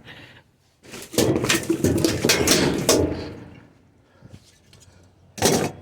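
Scrap being handled and shifted: a stretch of clattering and knocking for about two seconds, a few faint knocks after, then one sharp knock near the end.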